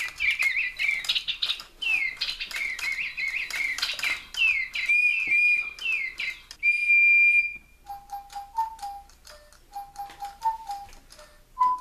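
DigiBirds electronic toy bird tweeting in quick falling chirps amid sharp clicks. About seven seconds in, a long steady blast on the toy's plastic whistle, and then the bird answers with a melody of short, even, lower notes.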